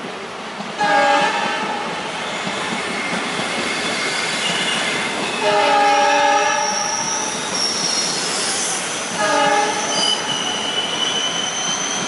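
Alco diesel locomotive's horn sounding three times: a short blast about a second in, a longer one in the middle and a short one near the end. Beneath it runs the steady rolling rumble and clatter of a goods rake of vans passing at speed. High-pitched wheel squeal comes in during the second half.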